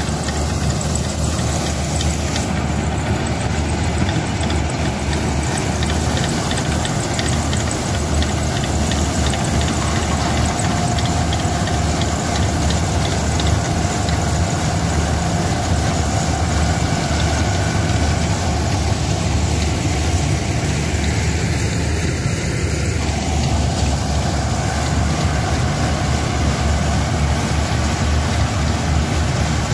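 Swaraj combine harvester's engine and threshing machinery running steadily under load as it cuts and threshes standing paddy.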